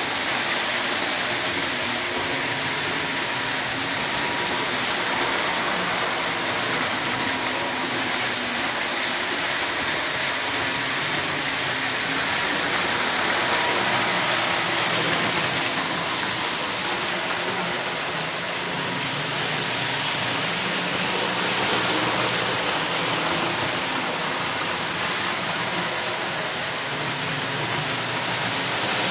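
Several O gauge model trains running at once on three-rail track loops: a continuous, even rolling noise of wheels on rail and electric motors.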